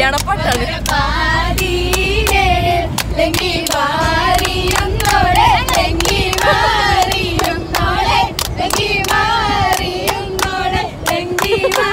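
A group of women singing together and clapping along in a steady rhythm, with the low rumble of the vehicle they ride in underneath.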